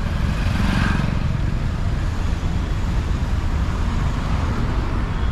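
Road traffic heard from a moving bicycle: cars, motorcycles and trucks passing over a steady low rumble.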